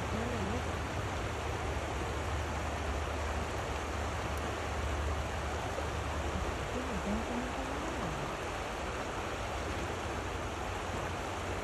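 Shallow river rapids rushing steadily over rocks, with a low rumble under the water noise.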